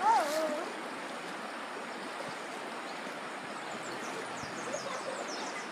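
Shallow river running over rocks: a steady rush of water. A short falling call is the loudest sound, right at the start, and faint high chirps come in over the last second or two.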